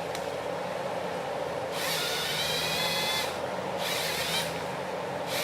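Forestry machine's diesel engine running steadily, with two short high-pitched whines from the felling head, the first about two seconds in and longer, the second near four seconds.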